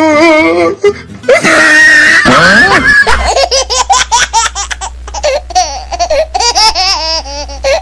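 Loud, high-pitched laughter. From about three seconds in it breaks into a quick run of short 'ha-ha' syllables, and a low steady hum starts underneath at the same moment.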